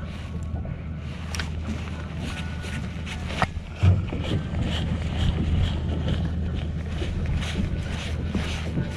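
Fishing boat's engine running with a steady low hum. Over it come quick, irregular clicks and taps that turn into a fairly regular rapid clicking in the second half, with one sharp thump just before the middle.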